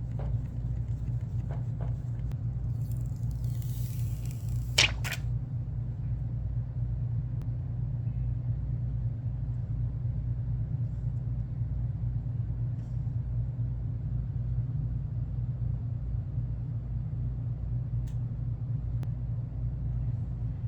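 Steady low hum, with a few small clicks early on and a sharp click about five seconds in.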